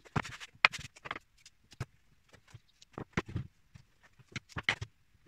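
Irregular sharp clicks and knocks of handling at the bench, as pieces of double-sided tape are put round a chipboard circle and a wooden ring is stuck down onto it.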